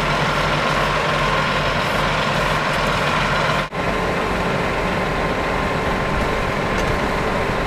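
Heavy diesel engine of road-repair equipment running steadily with a low hum, dropping out for an instant a little over halfway through.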